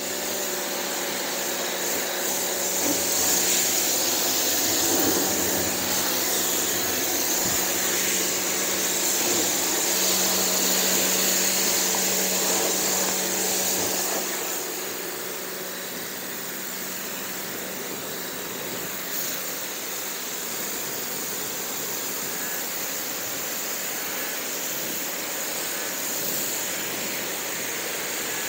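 Pressure washer rinsing a monster truck: a steady hiss of the high-pressure spray hitting the big rubber tire and the body, over the machine's low hum. The hum fades and the spray gets a little quieter about halfway through.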